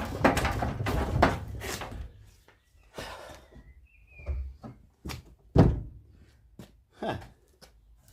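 Hammer blows on the bent front corner panel of a Trabant 601, knocking the metal back into shape. A quick flurry of strikes is followed by single heavy knocks a second or so apart, the loudest a little past halfway.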